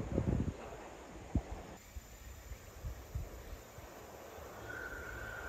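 Quiet outdoor ambience at a rural railway station: a low rumble with a few soft thumps, and insects faintly in the background. A faint steady high tone begins near the end.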